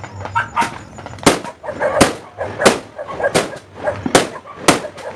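Fireworks going off, a steady string of sharp bangs about one every two-thirds of a second.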